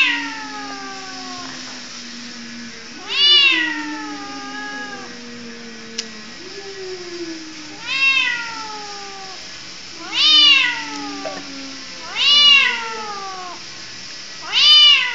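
Domestic cat meowing over and over: about six long, drawn-out calls roughly two seconds apart, each starting high and sliding down into a low, held moan.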